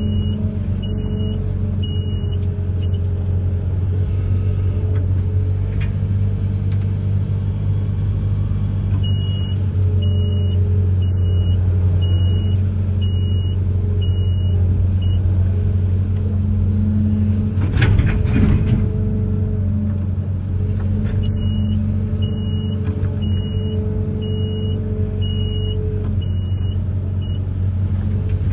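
Amphibious excavator's diesel engine running steadily, with an electronic warning alarm beeping at an even pace in three spells. A short louder burst of noise comes just past the middle.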